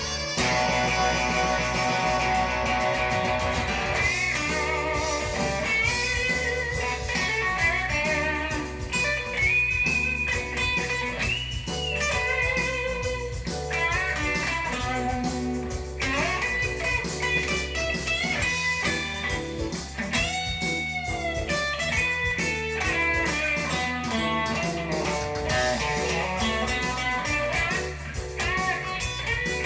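Thinline electric guitar playing bluesy lead lines, with bent notes rising in pitch several times, held notes with vibrato, and a steady low end beneath.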